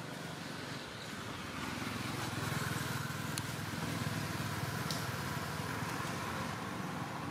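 A motor vehicle running on the road, its engine sound swelling about two seconds in and then easing slightly, with a few faint ticks over it.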